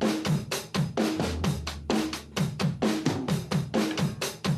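Background music: a fast, steady drum-kit beat, about four strikes a second, with bass drum, snare and hi-hat and short falling low notes on the beats.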